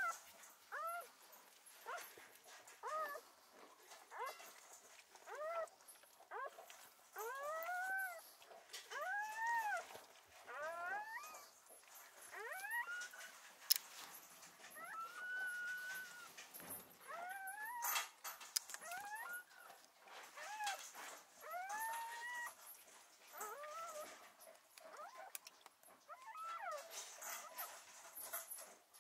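A newborn puppy crying: a run of high, thin squeals, about one a second, each rising and then falling in pitch. Two sharp clicks come about halfway through.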